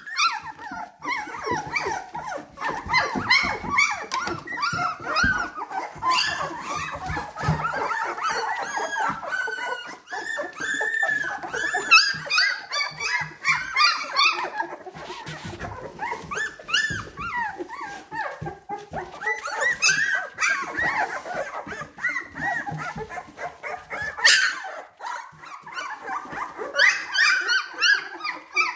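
A litter of 17-day-old black and chocolate Labrador retriever puppies whimpering, squeaking and yipping over one another with hardly a pause, many short rising-and-falling cries at once.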